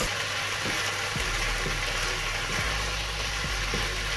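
Thin slices of beef sizzling in oil in a frying pan, stirred and turned with a wooden spatula, with a steady low hum underneath from about a second in.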